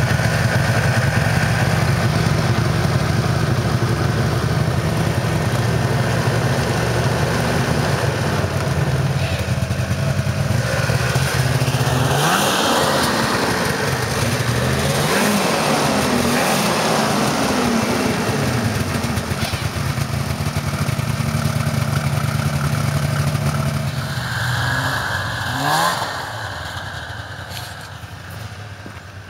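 1997 Ski-Doo MXZ 670's two-stroke engine running steadily, revved up and down several times in the middle and once more near the end, after which the sound drops away.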